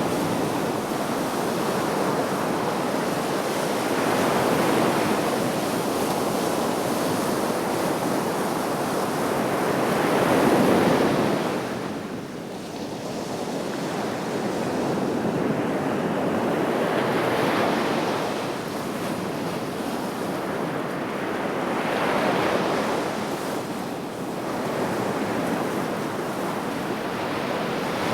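Sea waves breaking and washing on the Black Sea shore, swelling and ebbing about every five to seven seconds, with the loudest break about ten seconds in. Some wind is on the microphone.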